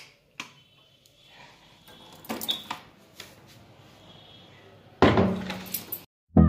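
Sharp clicks of wall light switches being flipped, then faint footsteps and small knocks, and about five seconds in a loud burst of noise lasting about a second that cuts off suddenly.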